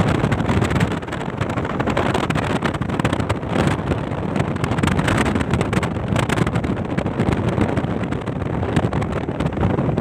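Strong wind buffeting the microphone: a loud, continuous, rumbling rush of noise that swells and eases.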